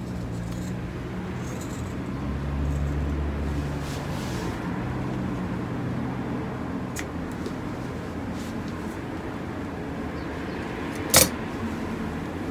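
Steady low rumble and hum, with a few faint handling ticks and one sharp click about eleven seconds in, as metal scissors are set down on the work table.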